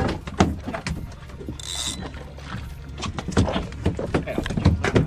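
Irregular knocks and handling noise on a small fishing boat, over a steady low hum, with a short hiss and a high squeak just under two seconds in.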